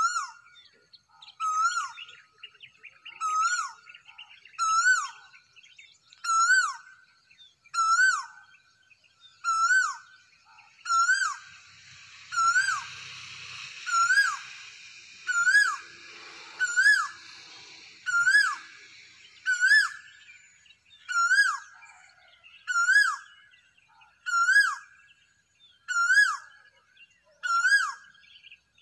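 A cuckoo calling one short, swooping note about every second and a half, over and over at a steady pace, with faint chirps of other birds between. Around the middle a soft hiss swells and fades.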